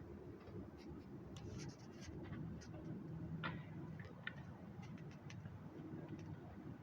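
Faint low hum with a scattering of small, light clicks and ticks, the clearest about three and a half seconds in.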